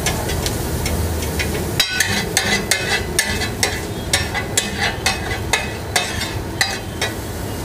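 Metal spatula scraping and clacking against a large flat tawa griddle while stirring and spreading rice pulao, with sharp clinks about three a second from about two seconds in, over a low steady hum and light sizzling.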